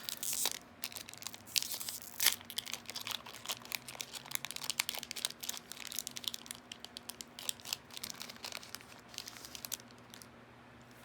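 A Yu-Gi-Oh! Maximum Gold El Dorado booster pack's wrapper being torn open and crinkled by hand: a dense run of crackling with a few louder rips near the start, dying away about ten seconds in.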